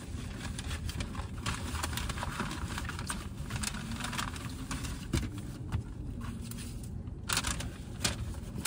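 Paper fast-food bags and wrappers rustling and crinkling in short, irregular bursts as food is unpacked and handled, with a steady low hum of the car cabin underneath.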